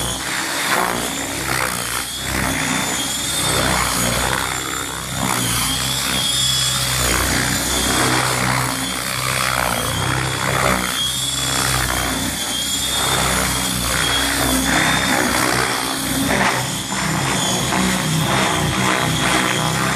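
Large 700-class radio-controlled helicopter in flight: rotor blades whooshing, swelling and fading as it manoeuvres, over a steady high whine from the drivetrain.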